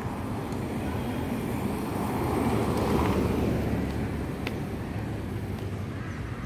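Traffic noise with a vehicle passing close by, swelling to its loudest about three seconds in and then fading.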